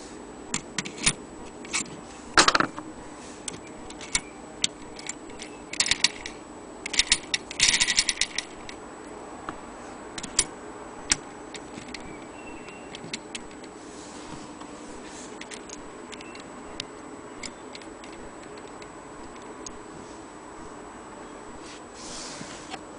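Vintage brass longcase clock movement being handled: irregular metallic clicks and clinks of its gears and parts, with a cluster of jangling clinks about six to eight seconds in and only scattered clicks after that.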